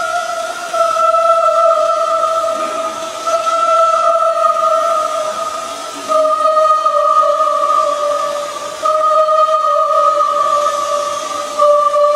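Background music: one held, pitched tone like a sung or synthesised drone, sinking slightly in pitch and taken up again with a swell every two to three seconds.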